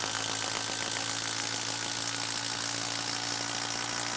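Makita 12V brushless impact driver hammering steadily as it drives a long TimberLOK structural screw into end-grain wood, the impact mechanism rattling without let-up.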